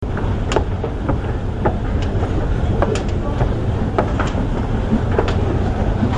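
Steady low rumble of a busy Underground station, with a train running nearby. Scattered sharp clicks of footsteps come from a person climbing the stairs.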